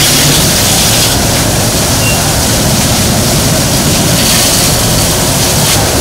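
Fire hose jet spraying hard onto a flooded shop floor, a steady loud rush of water, with an engine, likely the fire engine's pump, running underneath.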